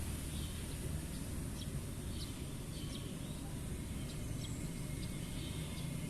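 Steady low rushing of a river, with short bird chirps scattered through.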